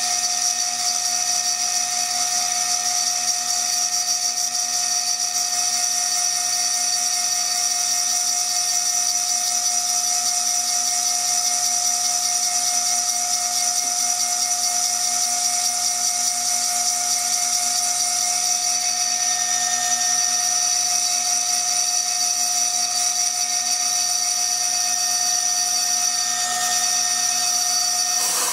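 High-speed CNC milling spindle whining steadily as a small sharp cutter engraves into the glass of a beer bottle, a constant high-pitched drill-like tone over a grinding hiss.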